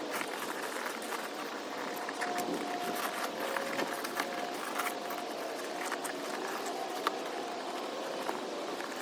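Scattered light clicks and rubbing from hands working a new inner tube into a fat e-bike tire, over a steady background hiss with a faint wavering hum.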